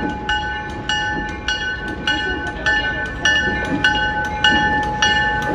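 A bell ringing steadily, about one and a half strikes a second, as a Canadian National MLW FPA4 diesel locomotive approaches with a passenger train, its engine rumbling low underneath.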